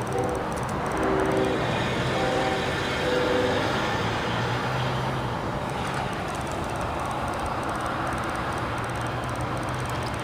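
Norfolk Southern freight train's diesel locomotives running as they approach, a low engine drone over a steady wash of noise. A few short pitched tones sound in the first few seconds.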